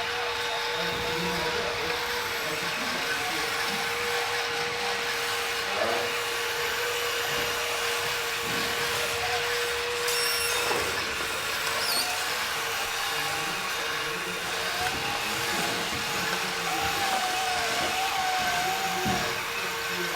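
Small electric motors and gearboxes of radio-controlled model trucks and construction machines whining as they drive and work, with a steady hum under several tones that rise and fall as the models speed up and slow down.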